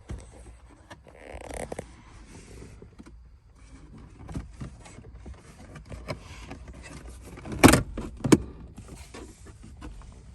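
Scattered clicks, rattles and knocks of hands and tools working on a truck's wiring, with two sharp knocks about half a second apart roughly three-quarters of the way through.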